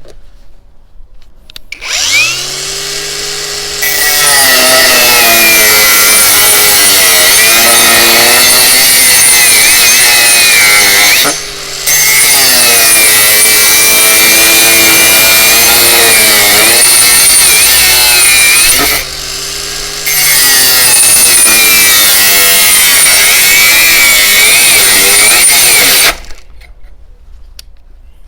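Parkside PWSAP 20-Li C3 cordless brushless angle grinder spinning up with a rising whine from its soft start, then working material under load in three long passes. Its motor pitch sags and wavers under load, with short spells of lighter running between passes, and it winds down near the end.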